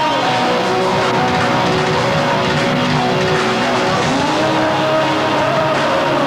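Heavy metal band playing live, led by a distorted electric guitar holding long notes and bending them up and down.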